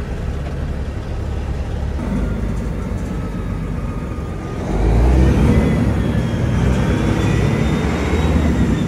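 Big-turbo Detroit diesel in an International semi truck running under way, then accelerating hard about four and a half seconds in. A turbo whistle climbs in pitch as the engine pulls.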